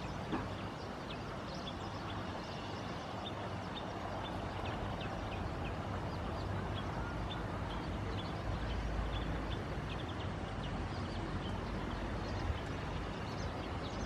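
Reed-bed ambience: a steady hiss with many short, high chirps scattered through it, and a brief low rumble a little past the middle.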